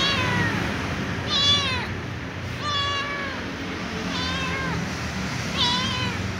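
A small cat meowing over and over, begging for dry food: five meows about a second and a half apart, each starting high and falling in pitch.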